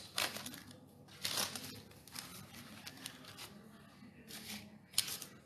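Faint rustling and crinkling of paper sticker packets being handled and counted, with a few brief sharper crinkles, the last near the end.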